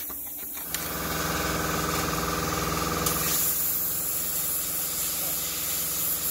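Plasma cutter starting about a second in with a steady electrical buzz and rushing air. A harsher high hiss joins about three seconds in as the arc works into the steel shell of a scroll compressor. The torch's tip is worn down, so it cuts poorly.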